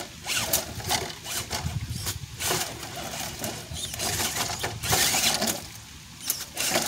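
Redcat Gen7 RC rock crawler tumbling over among boulders, its electric motor and gears whirring in spurts while its body and tyres clatter and knock against the rocks.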